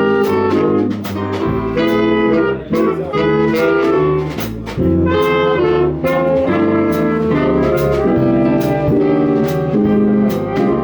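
Jazz band with saxophones and brass playing a tune together in chords, over drum cymbal strokes and a walking bass.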